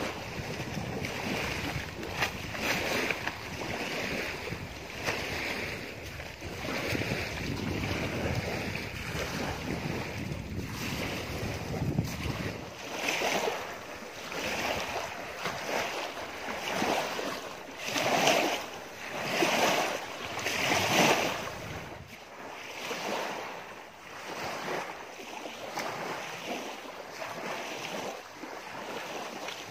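Small lake waves lapping on the shore, with wind buffeting the microphone through the first half. From about halfway the wash comes in separate swells every second or two.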